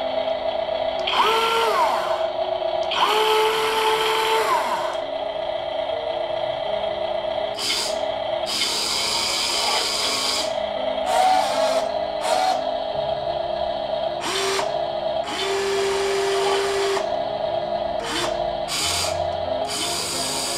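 Modster Digger 1:14 RC excavator's brushed electric motors whining in short runs as the boom, arm and bucket move. The pitch rises and falls with each run, with two longer runs in the first five seconds.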